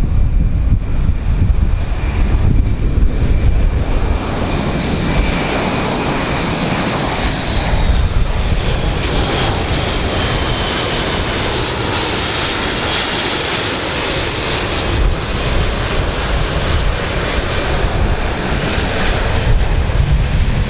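Airbus A400M's four TP400 turboprop engines with eight-bladed propellers running on a low pass: a continuous drone with a high whine over a low rumble. The whine sags slightly in pitch partway through, and the sound turns hissier and fuller as the aircraft comes closest.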